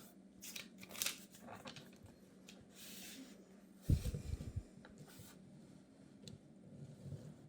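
Hands handling small LEGO Technic parts and packaging: scattered light clicks and rustling, with one heavier thump about four seconds in.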